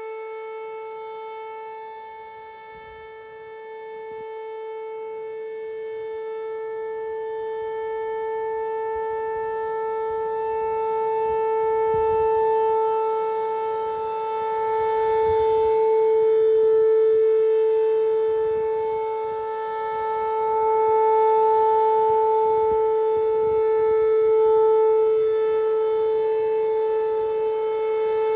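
American T-135 outdoor warning siren sounding a steady alert tone during its monthly test. The pitch holds constant while the loudness swells and fades every few seconds.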